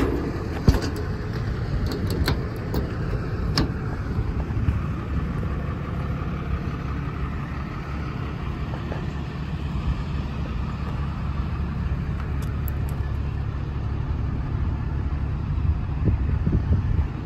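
A Cummins 6.7-litre diesel idling steadily. In the first few seconds there are sharp clicks and knocks from a service-body compartment door latch.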